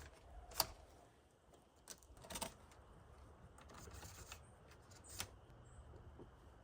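A few faint, scattered clicks and light knocks of small things being handled, the loudest about half a second in, over a low background hum.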